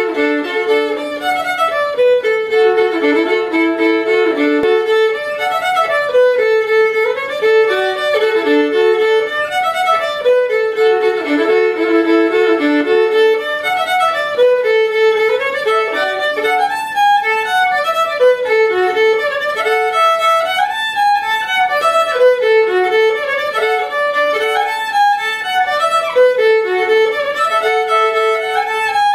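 Solo fiddle playing an old-time tune in the key of D, bowed, with a sustained drone note sounding under a melody that repeats in short phrases.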